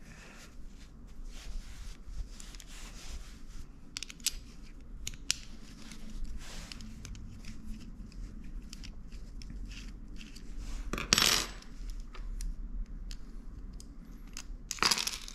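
Small metal parts of a Campagnolo rear derailleur clicking and clinking as the rear jockey pulley, its bolt and washers are taken off by hand and set down on a wooden bench. A louder clatter comes about eleven seconds in and again near the end.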